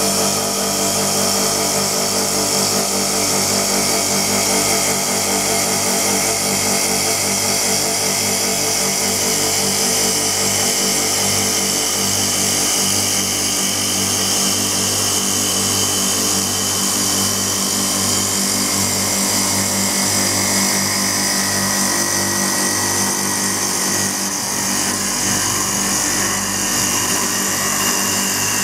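Double-spindle CNC wood lathe running with its four cutters turning two wooden stool or stair legs at once. A steady motor and spindle whine mixes with the continuous hiss of the blades cutting wood.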